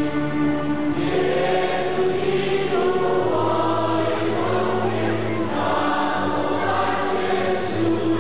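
Choir singing an offertory hymn, with long held notes.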